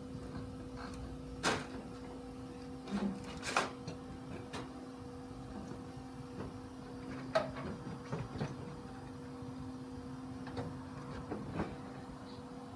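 Scattered knocks and clunks of a person climbing into a light aircraft's cockpit, over a steady low hum; the engine is not running.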